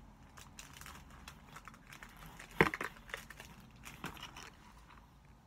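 Pins and their packaging being handled: light crinkling and scattered small clicks, with one sharp click about two and a half seconds in.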